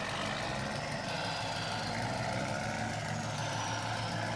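A steady engine hum like an idling truck, with no change in pitch.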